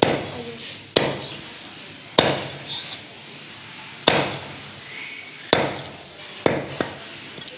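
Meat cleaver chopping through a whole fish on a round wooden chopping block, cutting it into steaks: about seven sharp chops at uneven intervals of one to two seconds, the last two close together.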